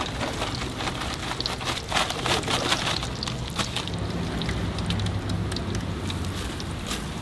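Hot oil sizzling and crackling in a large wok as battered pieces deep-fry, with a steady patter of small pops.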